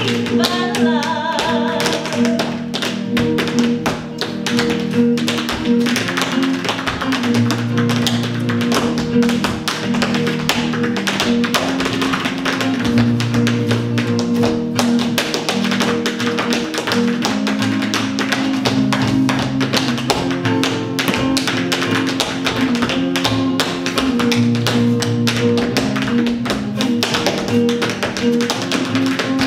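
Rapid tap-dance rhythms from two dancers' metal-tipped tap shoes striking the stage floor, over a live acoustic guitar playing chords.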